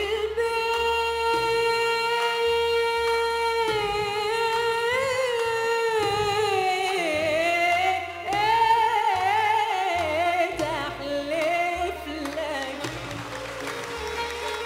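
A woman singing an Arabic classical song with an Arab orchestra of violins and plucked double bass: she holds one long steady note for the first few seconds, then moves into wavering, ornamented phrases.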